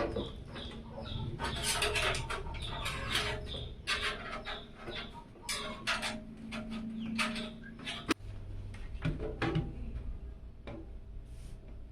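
Irregular clicks, taps and scraping of parts being handled and fitted during a PC build, with a sharper knock about eight seconds in.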